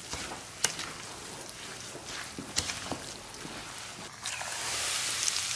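Chili flakes sizzling and crackling in freshly poured hot oil in a stainless steel bowl as a spoon stirs them, with a few sharp clicks of the spoon against the bowl. The sizzle grows louder about four seconds in.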